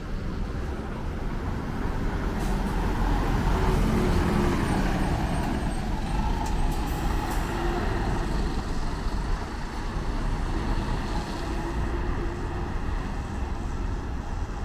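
Large buses' engines running as they pull out and drive across a bus terminal, a low rumble that swells a couple of seconds in, with traffic noise around them.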